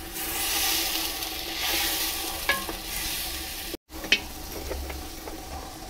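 Oxtail and red wine sizzling and hissing in a cast-iron potjie pot on a wood fire while a wooden spoon stirs it. Near the end the sound cuts and goes quieter, with a few sharp clicks.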